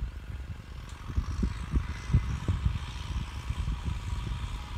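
Kubota tractor engine running as it works through brush, with irregular low thumps and knocks.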